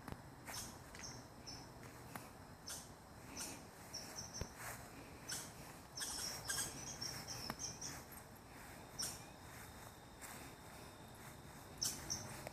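Faint outdoor ambience: birds chirping in short, scattered calls, busiest about six to seven seconds in, over a thin steady insect tone.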